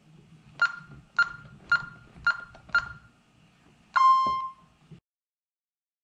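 Honeywell 6160RF alarm keypad beeping under key presses: five short beeps about half a second apart, the count of a four-digit code plus one command key. About four seconds in comes a single longer beep, the panel's acknowledgement as the system is disarmed from stay mode.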